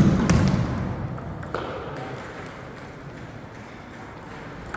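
Table tennis ball struck hard, a sharp loud hit with a thud that dies away over about a second in the reverberant hall. A lighter ball tap follows about a second and a half in, and another comes near the end.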